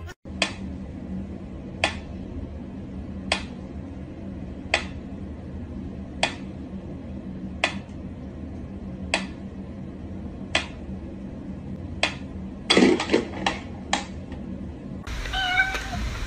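Mechanical pyramid metronome ticking slowly and evenly, one sharp tick about every second and a half. About thirteen seconds in, a cat meows a few times.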